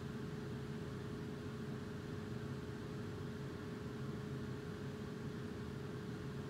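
A small fan running steadily: a low hum with a faint steady whine above it.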